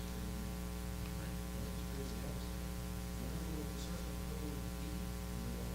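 Steady electrical mains hum from the recording system, with faint, distant speech underneath.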